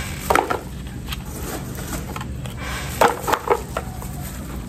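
Lumps of charcoal knocking and clattering as they drop into a plastic plant pot: one knock about a third of a second in, then a quick cluster of three or four about three seconds in.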